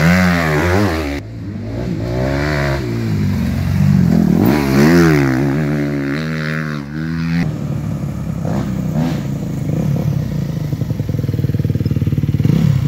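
Motocross bike engine revving up and down through the turns, its pitch rising and falling with the throttle. A little past halfway it changes to a lower, steady, fast-pulsing running as the bike rolls slowly.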